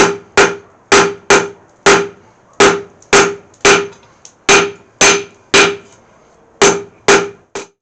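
Hand-hammer blows forging mild steel flat stock on an anvil, about two strikes a second with a few short pauses, each blow ringing. The steel is being drawn down to a taper.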